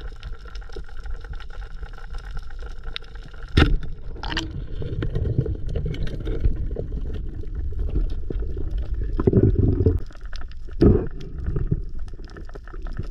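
Underwater ambience: a steady low rush of water with a faint steady whine. A single sharp crack comes about three and a half seconds in, and louder low churning water follows twice near the end.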